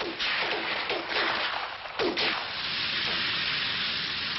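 Rushing noise of a Huey helicopter hovering, on an old newsreel soundtrack, with surges in the noise near the start and about two seconds in.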